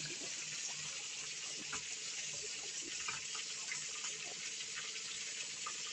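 Fish frying in oil in a pan: a steady sizzling hiss with small scattered pops and crackles.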